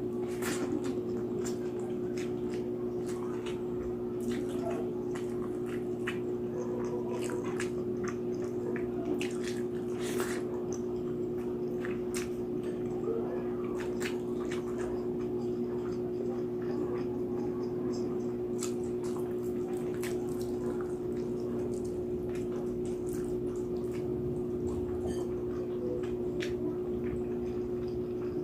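Close-up wet chewing and lip-smacking while eating roast pig's head, with small irregular clicks and snaps throughout, over a steady low hum.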